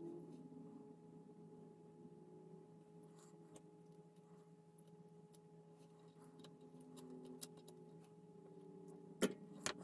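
Faint steady electrical hum under light clicks and taps of small parts and wires being handled, with a few sharper clicks in the last second.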